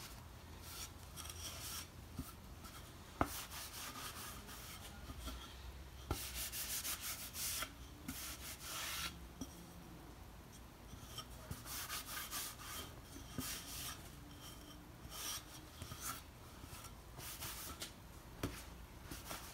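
Cloth rag rubbed over freshly finished wooden boards in irregular strokes, wiping off the excess of a second coat of oil-and-varnish wiping finish. A couple of light knocks come in, one about three seconds in.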